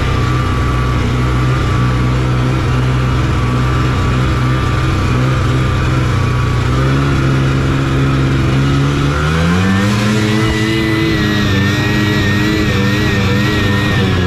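Taiga Varyag 550 V SE snowmobile's two-stroke engine running under way at a steady pitch, then revving up to a higher steady pitch about ten seconds in.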